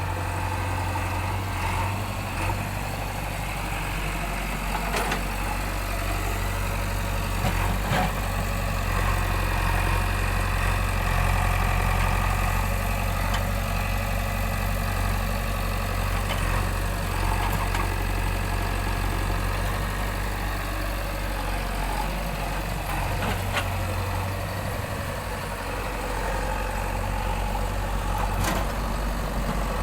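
Backhoe loader's diesel engine running steadily, with a few sharp knocks scattered through.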